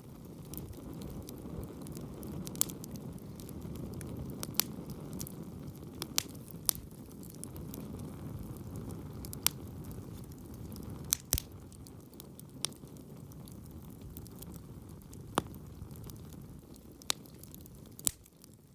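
Wood campfire burning in a small fire stand: a steady low rush of flame, with sharp, irregular crackles and pops from the burning wood.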